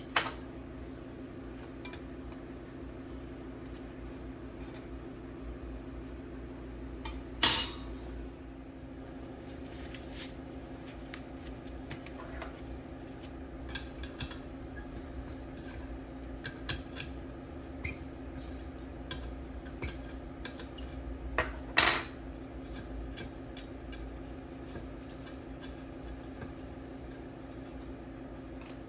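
Small metal parts clinking and knocking on a work surface as they are handled, with scattered light clicks and two louder clanks, one about a third of the way in and one about three quarters of the way in, over a steady low hum.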